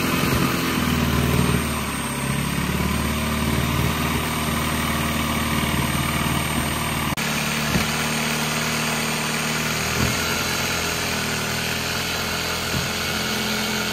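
Milwaukee Fuel brushless jigsaw with a Diablo wood-cutting blade running steadily as it cuts through 3/4-inch MDF board, with a brief break about seven seconds in.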